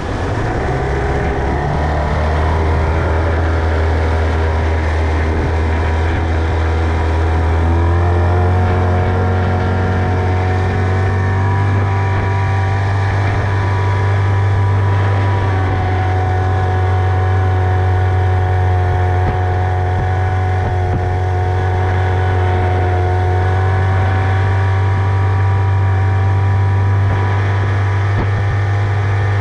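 Tohatsu 25 outboard motor running under way, its pitch climbing near the start and again about eight seconds in, then holding steady at speed.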